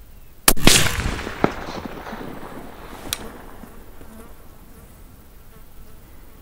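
A single shot from a Remington 700 VLS bolt-action rifle in .308 Winchester: a sharp crack about half a second in, followed by a rolling echo that dies away over a second or so. A faint sharp tick comes about three seconds in.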